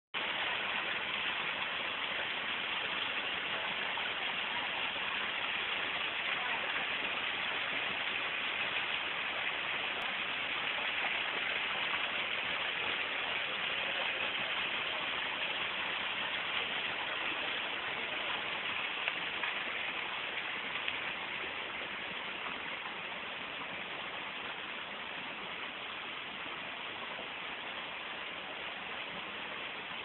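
Waterfall splashing down onto rocks: a steady rush of falling water that gets a little quieter about two-thirds of the way through.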